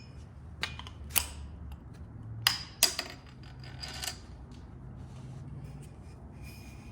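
Several sharp clicks and knocks of small hard parts being handled, over a faint low steady hum.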